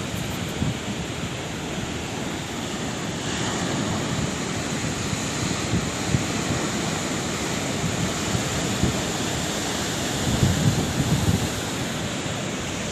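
Sea waves surging and washing on a shore, a steady rushing surf noise, with wind buffeting the microphone in a few low thumps near the end.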